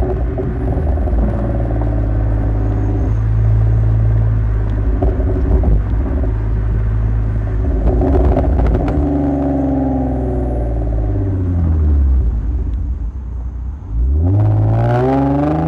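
Hyundai Genesis Coupe 3.8 V6 running through ported heads, long-tube headers and a homemade square steel muffler, an exhaust note the owner likens to a boxer engine. It holds a steady cruise, falls in pitch about twelve seconds in as it eases off, then after a brief dip revs hard with a rising pitch near the end under acceleration.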